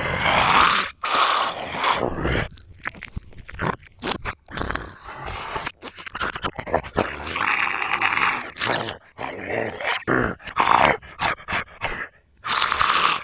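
Zombie sound effects: a run of hoarse growls and grunts broken by short gaps, with a longer drawn-out growl about eight seconds in.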